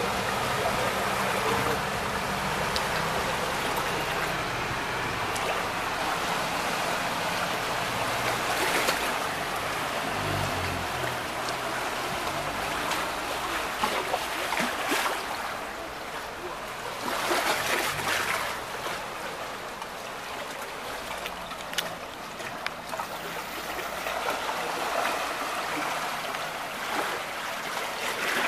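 Floodwater running through a street: a steady rushing of moving water, with a few louder surges about a third and two thirds of the way in.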